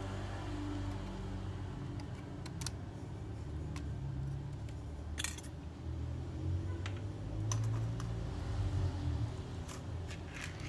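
Scattered light clicks and clinks of small hard parts and tools being handled while working on a laptop, over a low steady rumble.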